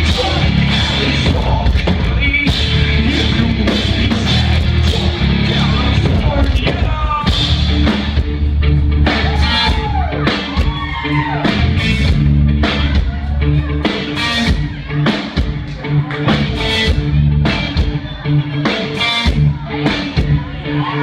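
Live rock band playing loud, with drums, bass and a singing voice.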